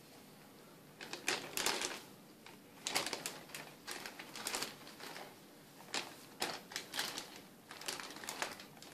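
Clear plastic bag crinkling and rustling in irregular bursts as hands rummage through the live rock packed inside it.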